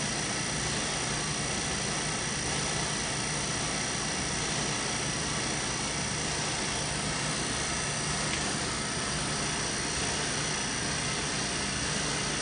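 Steady machinery drone of a running wiped-film short-path distillation unit: an even hiss-like noise with a low hum underneath, unchanging throughout.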